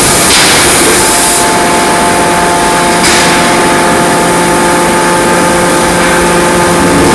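Loud, steady running noise of forge-shop machinery, with a constant hum of a few steady tones under dense noise and no distinct hammer blows.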